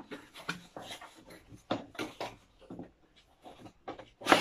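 A cardboard box being opened by hand: a string of irregular scrapes, taps and rustles of cardboard, with a louder one near the end.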